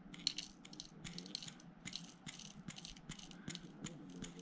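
Gold flakes and small nuggets poured from a small vial into a digital scale's weighing pan: a faint, irregular run of many light clicks.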